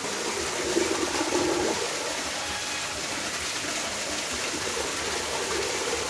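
Steady rushing and splashing of water in a shallow tank crowded with swamp eels.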